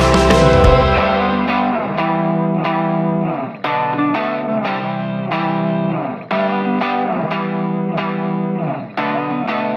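Background music: the full band with drums and bass drops out about a second in, leaving an electric guitar with chorus effect playing repeated picked chords in short phrases.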